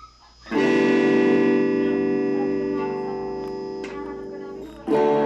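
Thomson Stratocaster electric guitar played through a Laney amplifier: a chord strummed about half a second in and left to ring, slowly fading, then a second chord struck near the end.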